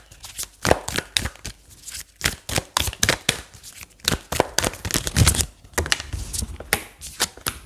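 A deck of cards being shuffled by hand: a quick, irregular run of sharp clicks and snaps.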